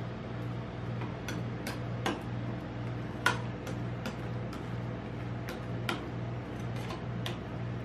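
Metal spatulas tapping and scraping on the metal cold plate of a rolled ice cream maker while working a sheet of ice cream. There are about a dozen sharp, irregular clicks, the loudest a little past the middle, over a steady low hum.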